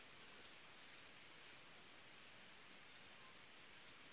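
Near silence: a faint, steady outdoor hiss with a few soft clicks.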